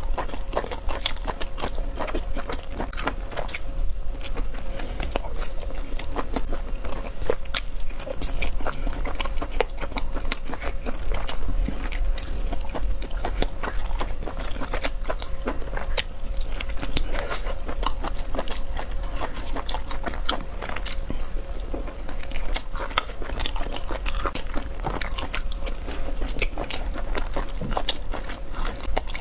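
Close-miked eating: biting into and chewing spicy cuttlefish and noodles, a dense run of short mouth clicks with no pause.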